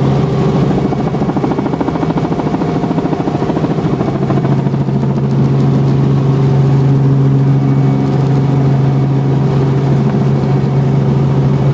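Robinson R44 Raven II helicopter heard from inside the cabin: the steady drone of its six-cylinder piston engine and transmission with a fast rotor beat, the beat strongest in the first half and easing after.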